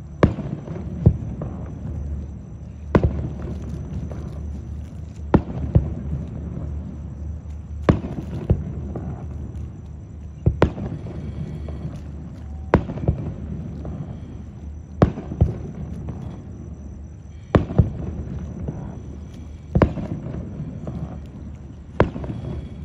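Aerial fireworks shells bursting, a sharp bang about every two seconds, several times two in quick succession, over a steady low rumble.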